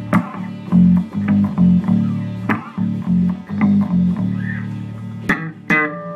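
Electric bass guitar being plucked: a rhythmic line of short low notes with sharp string clicks on the attacks. About five seconds in, the line stops with two sharp knocks and a last note left ringing.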